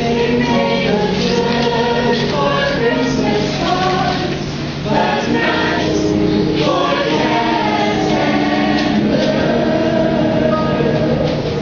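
A chorus of young voices singing a slow musical-theatre number in held notes over instrumental accompaniment, easing briefly a little before halfway.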